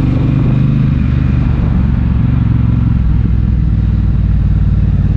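Triumph Bobber's 1200 cc parallel-twin engine running at low speed; its revs fall over the first few seconds, then hold steady.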